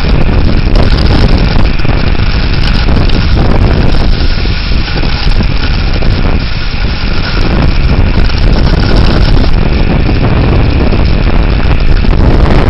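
Severe thunderstorm wind gusts buffeting the microphone: a loud, continuous, deep rushing roar that eases slightly midway and then builds again.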